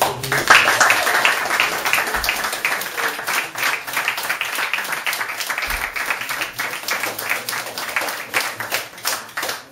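Audience applauding as a song ends: dense clapping at first, thinning to more separate claps and fading near the end.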